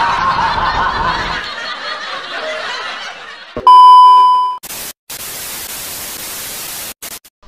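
A fading chattering noise, then a loud steady beep at one pitch, lasting about a second, as a TV colour-bar test pattern appears. It is followed by an even hiss of TV static that cuts out in short dropouts near the end.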